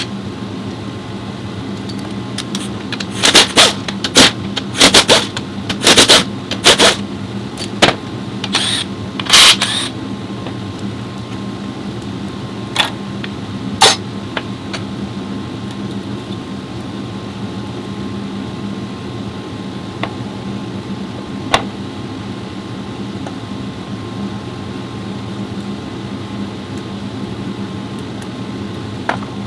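Steady workshop hum with a run of sharp clicks and knocks in the first third, then a few single knocks, from tools and parts being handled while a CVT transmission is worked on.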